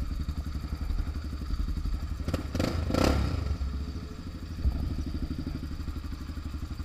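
Motorcycle engine idling with an even, pulsing beat. A short burst of clatter comes about two and a half seconds in, and a single thump a little later.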